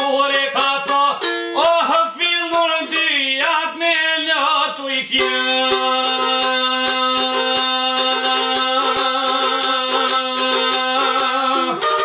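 Albanian folk song: a man sings to his own çiftelia, a two-stringed long-necked lute, for about the first five seconds. After that comes a long held passage with fast, even picking on the strings over a steady sustained tone.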